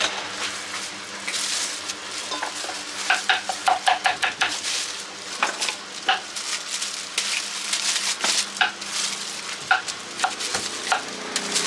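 Metal ladle clinking and scraping against a stainless-steel bowl as pieces of cut fruit are dropped in, giving irregular ringing taps, busiest a few seconds in. Near the end a knife taps on a cutting board as fruit is cut.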